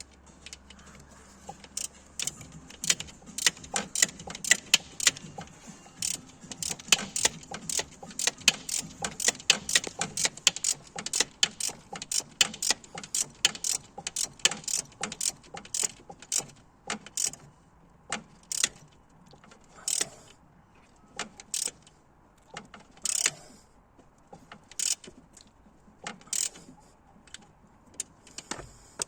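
Sharp metallic clicks and clinks of hand tools working on metal, several a second, coming thick at first and thinning out to scattered clicks in the second half.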